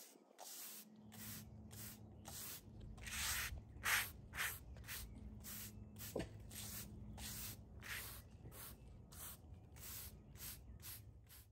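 Broom bristles sweeping across a concrete sidewalk in quick brushing strokes, about two or three a second.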